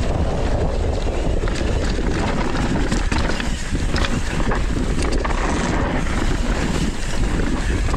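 Wind buffeting a GoPro's microphone as a downhill mountain bike runs fast down a dusty dirt track, mixed with tyre noise on the dirt and a few sharp knocks of the bike over rough ground.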